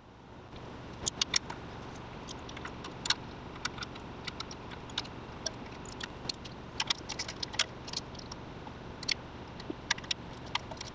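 Metal hand tools clicking and clinking against a rear brake caliper as its bolts are worked loose: scattered sharp metallic clicks, a few in quick clusters, over a steady low hum.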